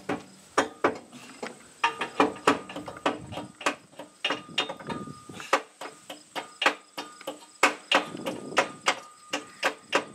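Hammer tapping on steel, an irregular run of sharp metallic strikes about two to three a second, some with a short ring: driving over a stiff cotter pin to flatten it.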